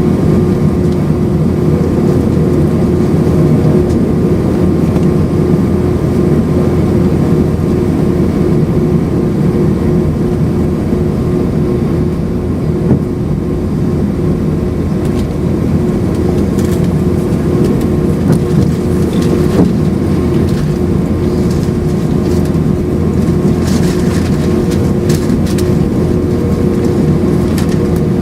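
Steady cabin noise inside an Airbus A319-131 with its V2500 jet engines running: a constant engine hum with air-conditioning hiss, holding steady in pitch and level. A few faint ticks or rattles come over the second half.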